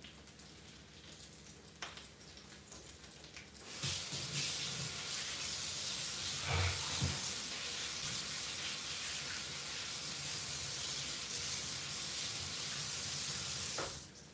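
Kitchen faucet turned on about four seconds in, water running steadily into the sink for about ten seconds, then shut off sharply just before the end, with a couple of dull knocks midway. Before the water starts, faint crackling from sausage and bacon on a griddle.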